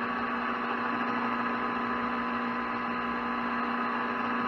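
Metal lathe running without cutting: a steady machine hum with a few fixed tones over a wash of motor and gear noise.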